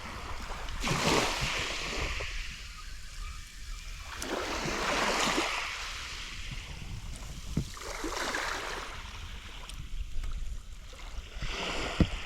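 Small waves washing up and drawing back on a sandy beach, one swell about every three to four seconds.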